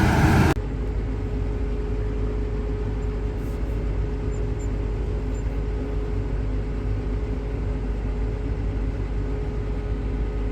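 Farm machinery engine running with a steady low drone and a faint steady whine; a different, louder and harsher sound cuts off about half a second in.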